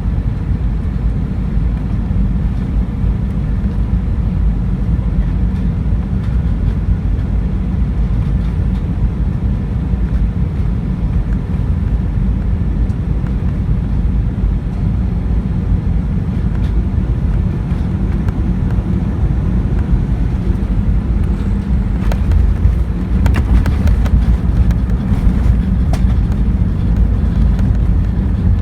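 Airbus A320 heard from inside the cabin during landing: a steady low rumble of engines and airflow. About three-quarters of the way through it grows louder, with scattered rattles.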